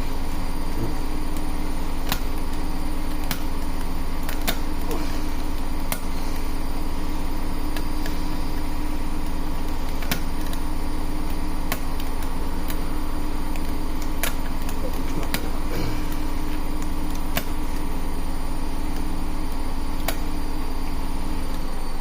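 Washing machine running with a steady mechanical hum that shakes the table, with about ten scattered light clicks from lock picks working a pin-tumbler lock.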